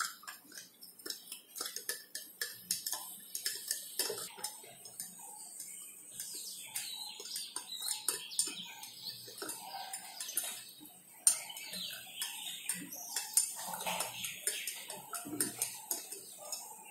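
A small plastic spoon stirring sugar into a glass of water, making rapid, irregular light ticks and clicks against the glass.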